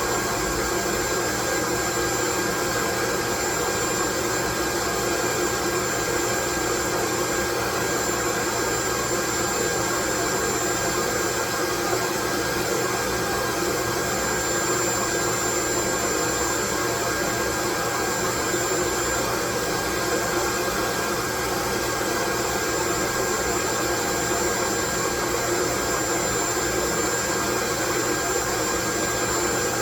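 Loud, unchanging white noise: an even hiss spread across the whole range, with a couple of faint steady whining tones running through it.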